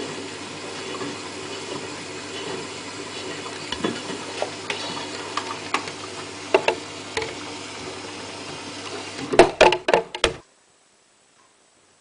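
Hotpoint Ultima WT960 washing machine on its rinse: the drum turning with water sloshing over a steady motor hum, and scattered light knocks from a plastic cap tumbling in the drum. A quick cluster of louder knocks comes about nine seconds in, then the sound cuts off abruptly.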